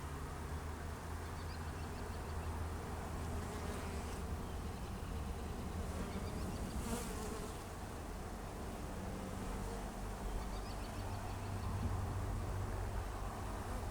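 Swarm of honey bees buzzing, a steady hum from many bees in the air and in the open hive.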